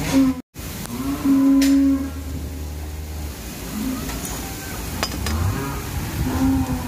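Dairy cows mooing: one loud, steady moo about a second in, then shorter, quieter moos around four seconds and near the end. The sound cuts out for a split second just before the first moo.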